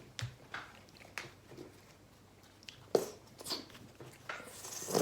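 Close-miked chewing and mouth sounds of people eating hot dogs in buns: scattered short wet clicks and smacks, the sharpest about three seconds in.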